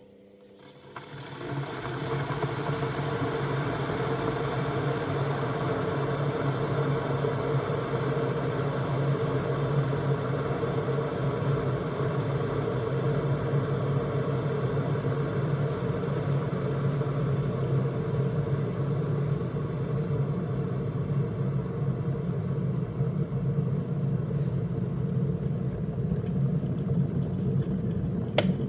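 Electric kettle heating freshly added cold water just after being switched on: a steady rumbling hiss builds up about a second in and then holds level. A single sharp click comes near the end.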